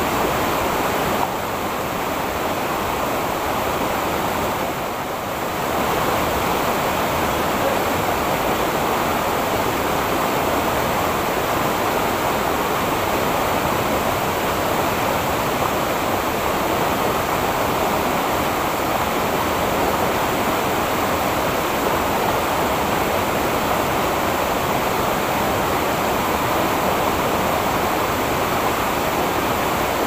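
Steady rush of a waterfall and the stream below it pouring over rocks.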